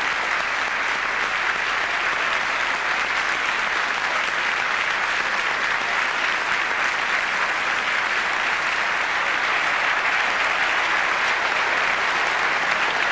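A large audience applauding steadily and without a break.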